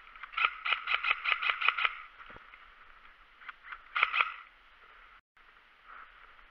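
M4-style airsoft rifle firing a quick string of about eight shots at roughly five a second, then a short burst of two or three about four seconds in.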